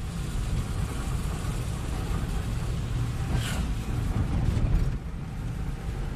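Steady low rumble of vehicle traffic, with a brief hiss about three and a half seconds in.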